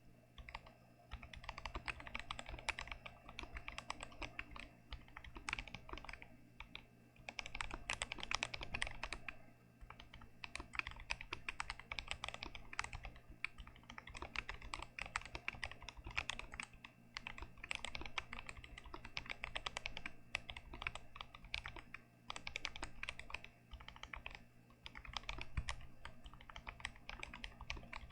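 Fast continuous typing on a stock GMMK Pro mechanical keyboard with Gazzew Boba U4T tactile switches, a rapid stream of keystrokes with a few brief pauses.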